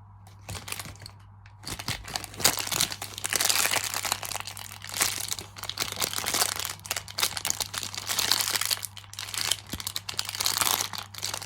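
Plastic squishy packaging crinkling and rustling as it is handled, in dense irregular bursts, quiet for the first second or two.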